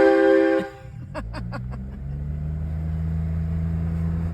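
Air-powered train horn fitted to a vehicle, blasting a loud multi-note chord that cuts off under a second in. A quick run of short sharp sounds follows, then a steady low hum.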